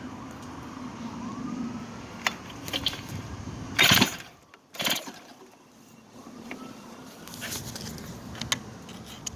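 Stihl MS261 chainsaw being pulled over on its recoil starter with a spark tester hooked to the ignition coil: one loud short rasp of the pull about four seconds in, with scattered sharp clicks around it. The engine does not catch.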